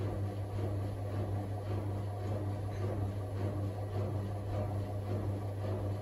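Super General front-loading washing machine running its drum-cleaning programme: a steady low motor hum.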